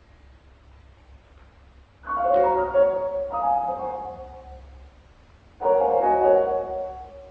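Piano improvisation: after about two seconds of quiet, a chord is struck and left to ring, with new notes added about a second later, then another chord struck near the end, each dying away slowly.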